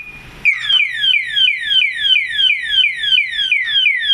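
Alarm security padlock's built-in siren set off about half a second in: a loud electronic whoop falling in pitch, repeating about three times a second.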